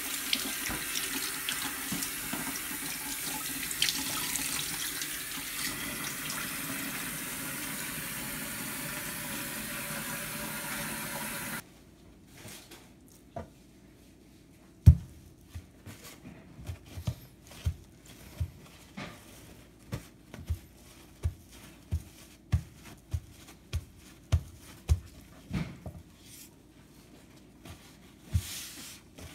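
Kitchen tap running into a stainless steel sink, splashing over a fish being rinsed, cutting off abruptly about 12 seconds in. After that, much quieter soft thumps, about one or two a second, as paper towels are pressed and wiped over a wooden cutting board; the loudest is a single knock shortly after the tap stops.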